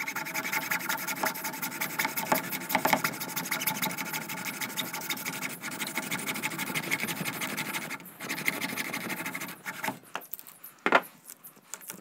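Hand hacksaw cutting through the secondary winding of a microwave oven transformer, a fast, continuous rasping of back-and-forth strokes with a brief pause about eight seconds in. The sawing stops about ten seconds in, followed by a few separate knocks, one sharp one about eleven seconds in.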